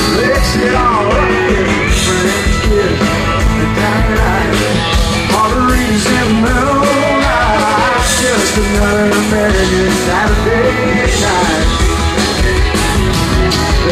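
Live country-rock band playing loudly through a large outdoor concert sound system, heard from within the crowd. A lead melody bends in pitch over a steady beat.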